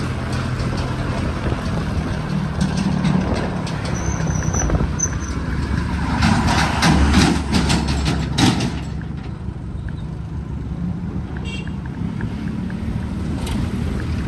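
Road traffic: vehicle engines running steadily, with a brief high squeal about four seconds in and a louder vehicle passing about six to eight seconds in.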